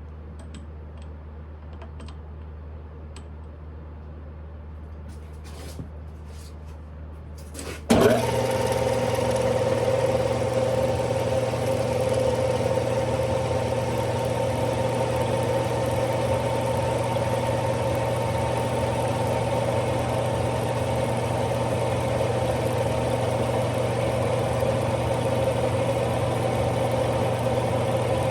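Smithy lathe switched on about eight seconds in and running steadily with a whining hum. Before that there is only a low hum and a few light clicks.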